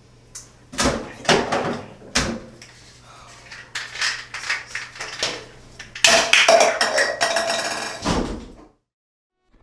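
Someone rummaging through household objects: a series of knocks and clatter as things are moved about, busiest and loudest from about six seconds in, then cutting off abruptly near the end.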